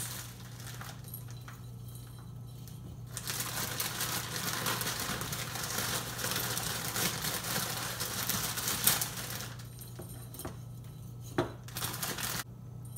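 Crinkling plastic bag and crackling dry vermicelli noodles as they are pulled out and pushed into a glass mason jar, in two stretches, with a couple of sharp clicks.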